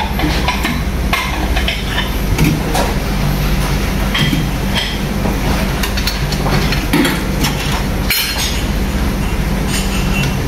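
Dishes and cutlery clinking now and then over a steady low hum.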